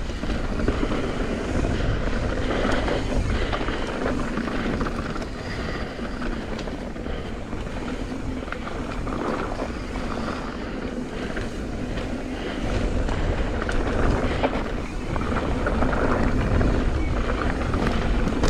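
Mountain bike riding down a dirt trail: tyre noise on the ground with irregular rattles and clatter from the bike over rough terrain, and wind buffeting the microphone.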